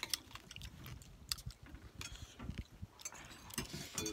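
Close-up chewing and biting of a mouthful of rice-field crab salad with rice, heard as irregular short clicks and crunches.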